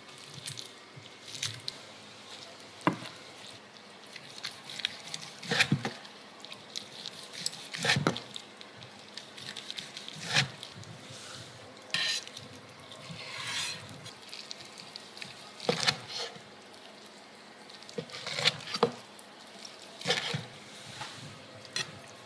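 Kitchen knife cutting and slicing boiled pork trotters, with irregular sharp knocks every couple of seconds as the blade hits the wooden cutting board and then the ceramic plate, plus soft wet squishing of the meat as it is handled.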